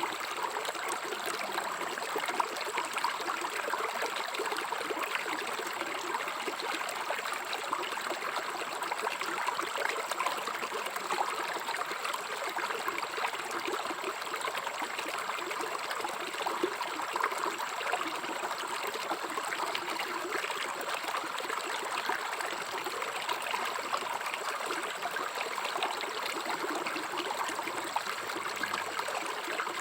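River water flowing: a steady, even rush of running water with fine splashing, unchanging throughout.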